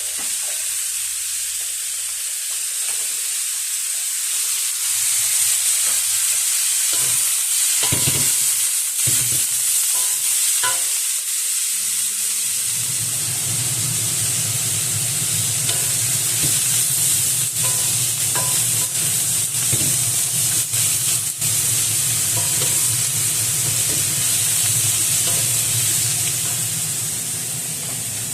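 Fermented pork frying in oil in a pan, sizzling with a steady hiss while a spatula stirs and scrapes it in scattered clicks. About twelve seconds in, a low steady hum joins.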